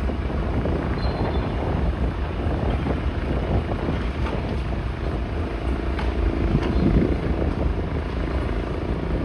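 Steady low engine rumble, with a few faint clicks and a brief pitched hum about halfway through.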